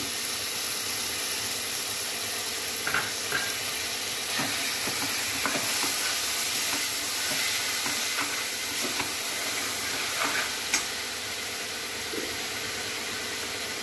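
A steel spoon stirring and scraping through sprouted horse gram and chopped vegetables in a stainless-steel pressure cooker, with scattered light clinks of spoon on metal, over a steady hiss.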